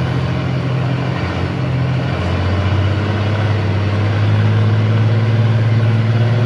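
School bus engine running, heard from inside the bus with road noise. Its low hum shifts in pitch about two seconds in and gets a little louder.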